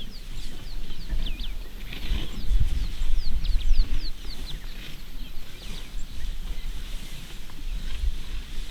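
Birds calling: a steady string of short, quick downward-slurred chirps, several a second, over a constant low rumble.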